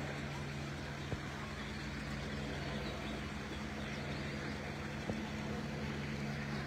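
Steady low engine hum with no change in pitch, and a couple of faint ticks.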